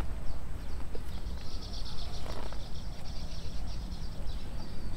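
Outdoor ambience: a high, fast-pulsing animal trill that starts about a second in and carries on, over a steady low rumble.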